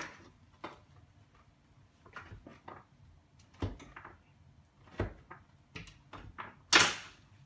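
A knife cutting down through a firm chocolate bar onto a wooden cutting board: single knocks about a second apart, with one louder, longer clatter near the end.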